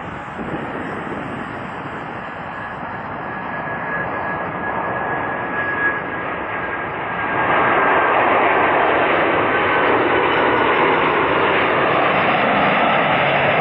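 Boeing 747-400 freighter's four jet engines on low final approach with the landing gear down: a steady rush of jet noise with a thin high whine. A little over halfway through it grows suddenly louder as the jet passes closest, and stays loud.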